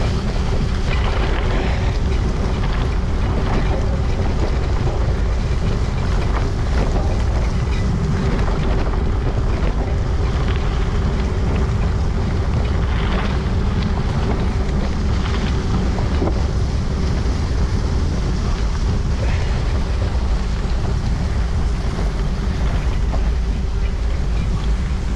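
Steady wind rumble on the microphone of a camera riding on a moving bicycle, with a faint steady hum under it.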